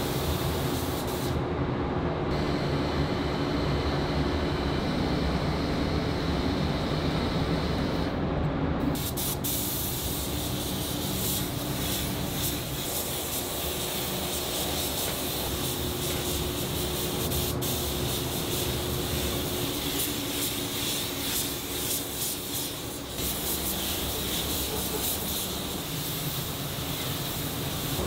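Air spray gun hissing as it sprays paint onto a steel truck body, with two brief breaks in the hiss about a second and a half and eight seconds in, over a steady low machine hum.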